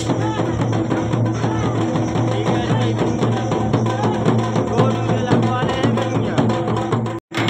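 Dhol drums beating with a melody over them, cutting out for a moment near the end.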